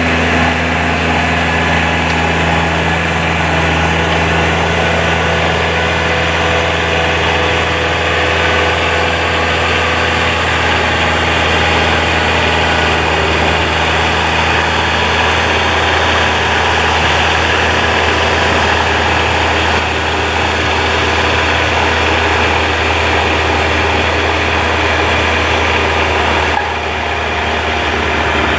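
Kubota tractor's diesel engine running steadily, with a steady low hum and no changes in speed; the level dips slightly near the end.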